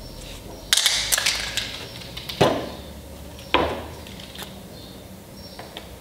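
Wooden bed rail and hand tools being handled on a workbench: a quick rattle of clicks, then two solid knocks about a second apart as the rail is set down.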